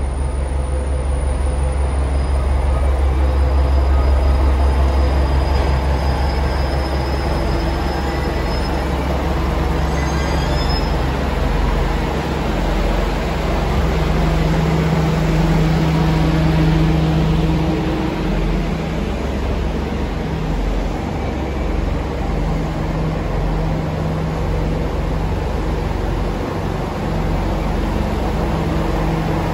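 Diesel engines of the Aru Ressha, a tourist train built from rebuilt KiHa 47 diesel railcars, running at the platform as a steady low rumble. The engine note swells and holds for a few seconds about halfway through.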